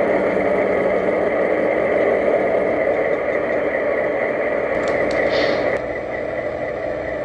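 O-scale model diesel switcher locomotive running on the track, its sound system giving a steady diesel engine rumble. A couple of sharp clicks come about five seconds in, and the sound drops a little just before six seconds.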